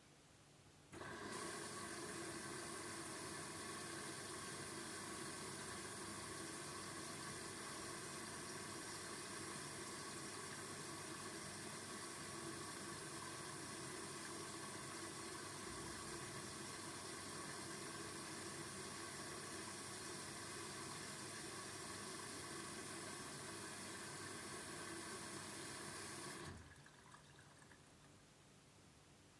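Arçelik washing machine's water inlet valve filling the drum: a steady rush of running water that switches on abruptly about a second in and cuts off sharply near the end.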